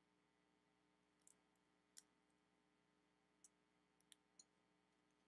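Near silence broken by a handful of faint, sharp clicks, the clearest about two seconds in: wooden colored pencils clicking against each other as the next one is picked out.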